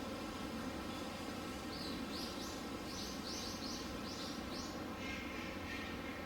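A small bird chirping, a quick run of about eight short high calls from a couple of seconds in, over a steady low background rumble.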